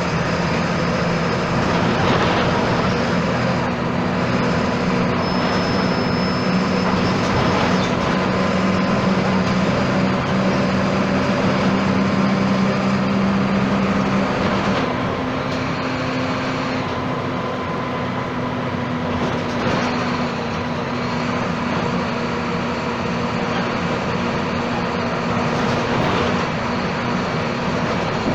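Volksbus 17-230 EOD city bus with a Marcopolo Torino body running, a steady diesel engine drone over road noise and body rattles. The engine note holds steady, then shifts about halfway through.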